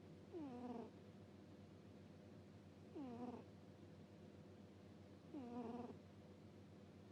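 Sleeping cat snoring with a soft whistling 'puu' on its breaths: three short, downward-gliding tones about two and a half seconds apart.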